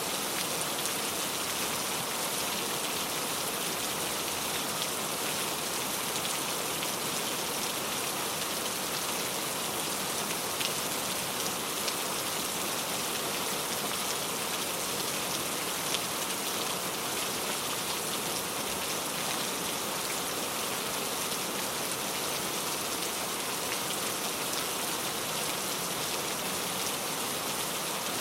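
Heavy rain falling steadily, a dense even hiss of drops hitting a surface, with occasional louder individual drop ticks.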